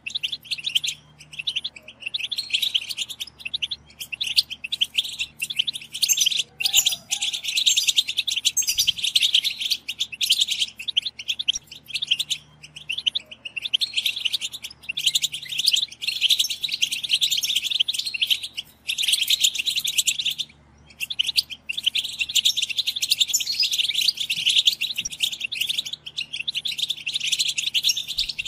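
Several European goldfinches twittering and chattering together in a dense, unbroken run of rapid high chirps, with one brief pause about twenty seconds in.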